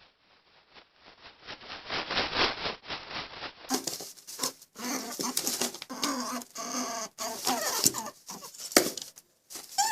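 Animals scuffling with quick, irregular pattering. After a cut about four seconds in, a run of short pitched animal calls follows amid more scuffling.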